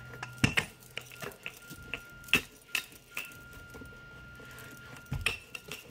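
Wooden rolling pin rolling and knocking on a floured wooden board while flatbread dough is rolled out and handled, giving a string of short, light knocks and clicks.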